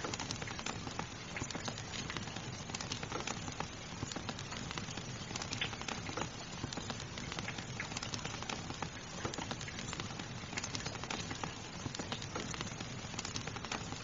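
Fireplace fire crackling with frequent small irregular pops over the steady soft hiss of rain.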